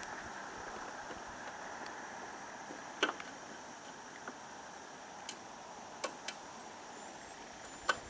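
Faint, steady outdoor background hiss, broken by about five short, sharp clicks or snaps spread over the second half.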